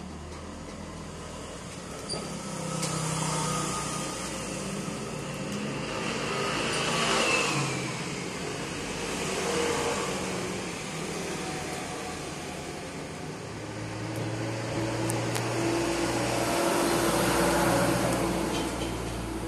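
Motor vehicles passing nearby, their engine noise swelling and fading, loudest about seven seconds in and again near the end.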